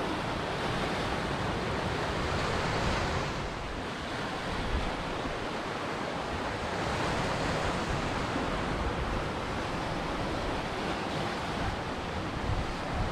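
Ocean surf: waves breaking and washing in, a steady rush that swells to a peak about three seconds in, eases, and builds again about halfway through.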